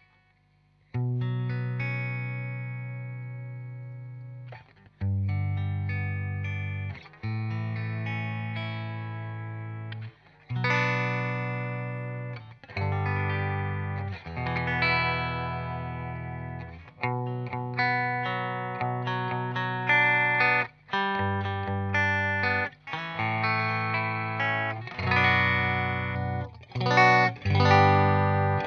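Electric guitar played through a Fender '65 Deluxe Reverb amplifier, picked up by a Shure SM58 microphone: chords struck and left to ring and fade, starting about a second in, with the changes coming quicker toward the end.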